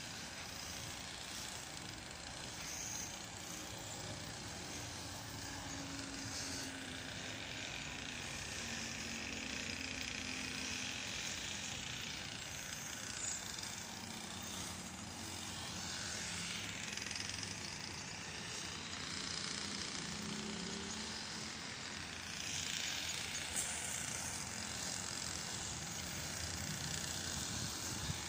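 Steady outdoor background noise with the faint hum of distant road traffic, its pitch drifting slowly.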